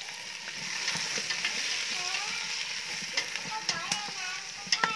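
Salmon pieces sizzling in hot oil in a pot with fried lemongrass and garlic, as they are stirred with wooden chopsticks that click against the pot and the fish several times.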